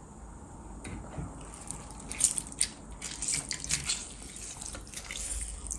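Lemon squeezed by hand over food, juice dripping and the fruit squishing in a quick run of small wet crackles that starts about a second and a half in.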